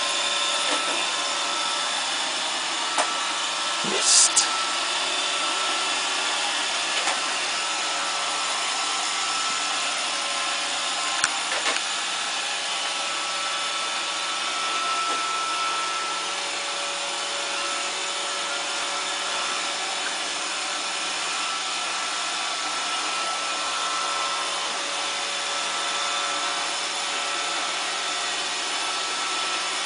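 Roomba robot vacuum running steadily with the even hum of its vacuum and brush motors. A few short sharp knocks break through, the loudest a double knock about four seconds in.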